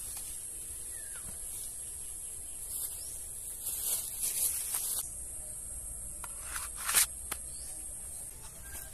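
Steady high-pitched drone of insects, with a few soft clicks and rustles around the middle and one sharp click about seven seconds in.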